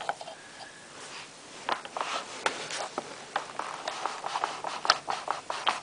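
Hands working a PVC pipe breech open for loading: irregular light plastic clicks, taps and rubbing as the barrel is slid back out of its coupling. The clicks come sparsely at first and grow busier after about a second and a half.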